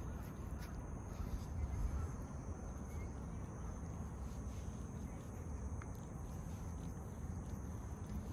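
A cat licking its fur close to the microphone: soft, irregular tongue clicks over a steady low rumble, with a constant high insect trill behind.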